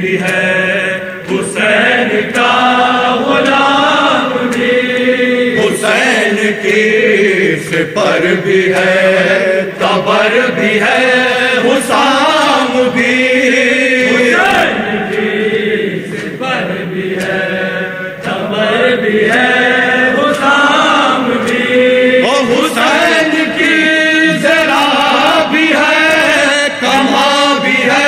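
A group of men chanting an Urdu noha, a Shia lament: a lead reciter sings at the microphone and the other men sing along in chorus.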